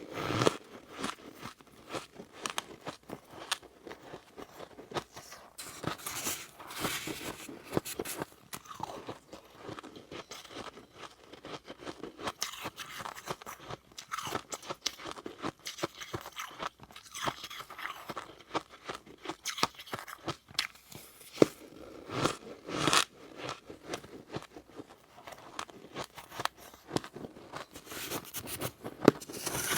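Close-up crunching and chewing of powdery freezer frost: irregular bites and crackly crunches that come in clusters throughout.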